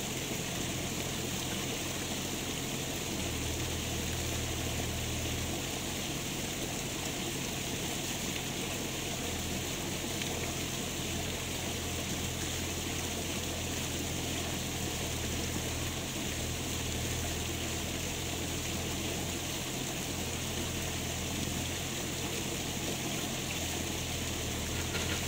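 Steady rush of flowing water, with a low hum that comes and goes several times.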